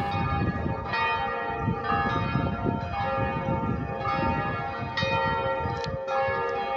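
Church bells ringing, a fresh stroke about once a second over the long ring of the earlier ones, with a low background rumble underneath.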